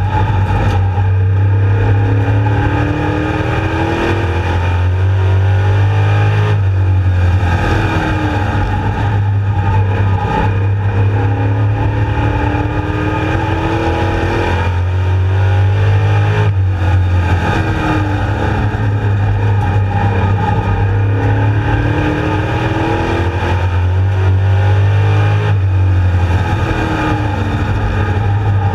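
Street Stock race car's engine heard from inside the cockpit at race pace, its pitch climbing as it accelerates down each straight and dropping as the driver lifts for the turns, several times over, with a steady rush of wind and road noise underneath.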